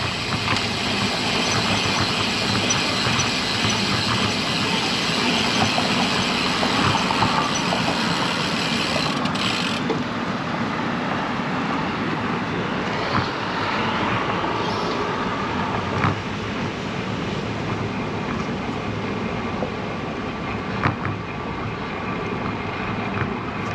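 Steady rushing wind and road noise on the action camera's microphone from a road bike riding along a road; the hiss turns duller about ten seconds in.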